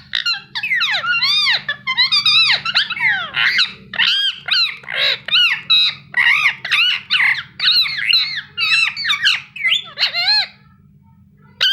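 Indian ringneck parakeet chirping: a rapid string of short, high, squeaky calls that rise and fall in pitch, several a second, breaking off near the end and then one last call.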